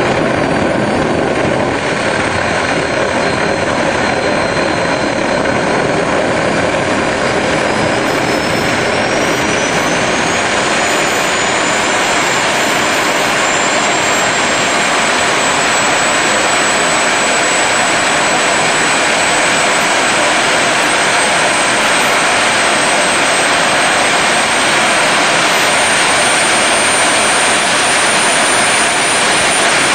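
Go-kart's jet engine running, a loud steady roar with a high turbine whine that rises in pitch over the first dozen seconds as the engine spools up, then holds high.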